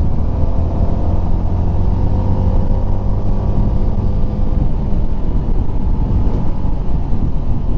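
CF Moto 300SR's single-cylinder engine running at a steady, gently varying pitch while riding, picked up by a helmet lavalier mic wrapped against wind, over a steady low rumble of wind and road noise.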